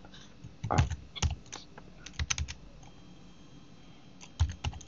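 Keystrokes on a computer keyboard: scattered, irregular key clicks with short pauses between them and a quick run of keys near the end.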